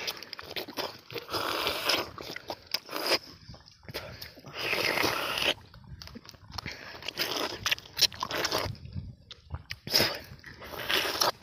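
Biting and chewing the soft flesh of tender palmyra fruits (ice apples), in irregular bursts.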